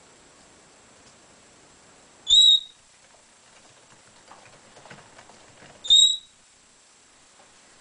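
Red-bellied parrot giving two short, high whistled calls about three and a half seconds apart, each a brief clear note with a slight upward inflection.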